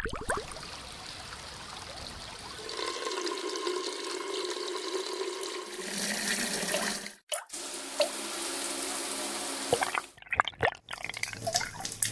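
A string of separate sound effects cut one after another: a steady rushing noise, then a short dropout about seven seconds in, then a different steady sound, and near the end a run of sharp clicks and knocks.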